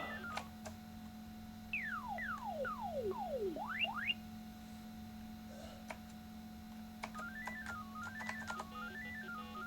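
Computer sound effects from a Macintosh SE's built-in speaker: a repeating stepped beeping pattern climbing and falling in pitch, broken off by four falling and two rising electronic whistle-like sweeps about two seconds in, then the stepped beeping returns near the end. A steady low hum runs underneath.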